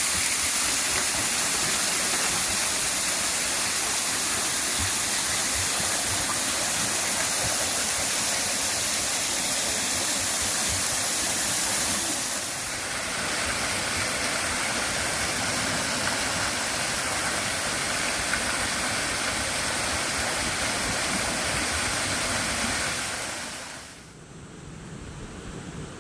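Steady rush of water in a mountain stream and waterfall, bright and hissing. About halfway through it changes abruptly to another, slightly quieter stretch of rushing water, and near the end it drops sharply to a much quieter, duller sound.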